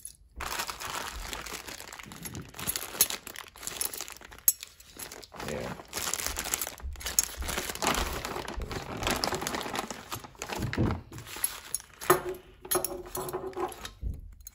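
Clear plastic zip-top bags crinkling and rustling in irregular bursts as stainless V-band clamps are handled and pulled out of their packaging.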